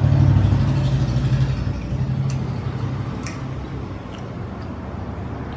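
A low, steady engine hum, loudest at the start and slowly fading, with a few faint ticks over it.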